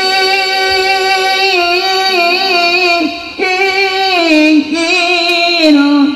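A woman's voice singing one long drawn-out note into a microphone, wavering with small ornaments; the pitch steps down about three seconds in and again near the end.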